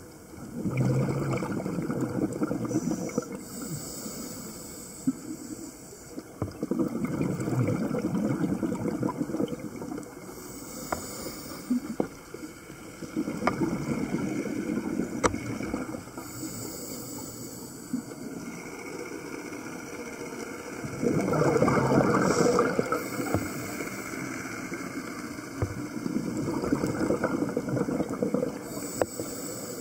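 Scuba diver breathing through an open-circuit regulator underwater: a short high hiss on each inhalation, then a rumbling rush of exhaled bubbles lasting a few seconds, about five breaths in all. A few faint sharp clicks fall between the breaths.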